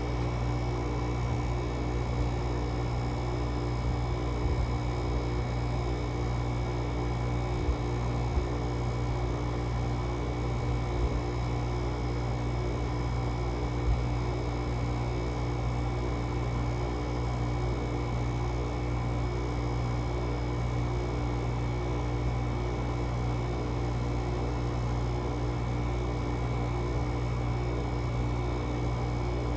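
GE 5050 BTU window air conditioner running steadily in 15°F cold, its Samsung rotary compressor humming along with the fan while it slowly builds head pressure. A few faint ticks sound during the run.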